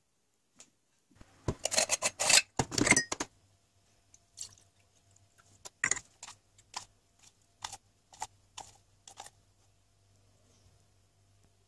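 Stainless steel moka pot parts handled on a steel sink: a loud rattling clatter of metal for about two seconds, then a string of lighter, spaced clinks and taps as the filter basket is set in and coffee is spooned into it.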